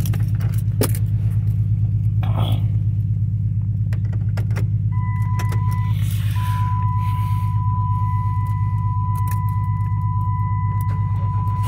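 Chrysler 3.3-litre V6 of a 2009 Dodge Grand Caravan fast-idling steadily after a cold start, heard from inside the cabin. A few clicks and a short key-like rattle come early, and a steady high tone starts about five seconds in, breaking briefly once.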